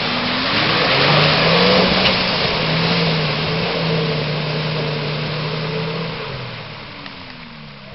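Nissan Patrol 4x4's engine revving hard under load as it ploughs through a deep mud pit, with its tyres churning mud and water. The engine note rises about a second in, holds steady, then drops and fades as the vehicle pulls away near the end.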